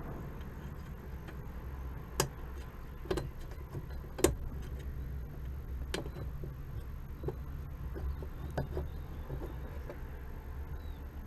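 Scattered sharp clicks and knocks of metal parts being handled while fitting a clutch pedal assembly and cable, the loudest about two and four seconds in, over a steady low hum.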